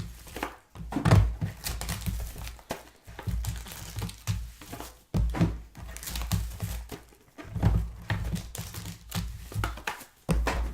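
Trading-card packaging being handled and opened: wrappers crinkling and tearing, with irregular light thuds as boxes and cards are set down.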